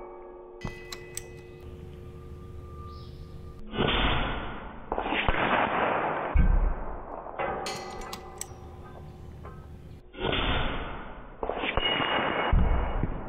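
Several shots from a Hatsan Factor RC Sniper Long PCP air rifle, with pellets clanging off steel knockdown targets. The shots come in two groups, about four and about ten seconds in, with sharp metallic ticks and short ringing between them.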